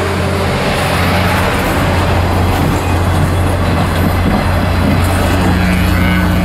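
Railcars of the Canadian Pacific Holiday Train rolling past close by: a steady rumble of wheels on rail with a low hum underneath.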